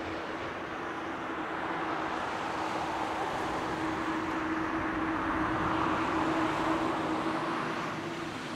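Jet engines of an Airbus A321-200 climbing out after takeoff: a steady rushing noise over a steady low hum, swelling slightly and then easing off near the end as the airliner draws away.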